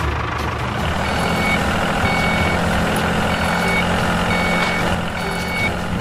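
Vehicle reversing alarm beeping, about one short high beep a second, over a steady motor hum.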